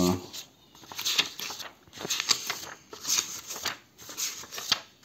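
Paper instruction manual rustling as its pages are handled and turned: a series of short swishes, roughly one a second.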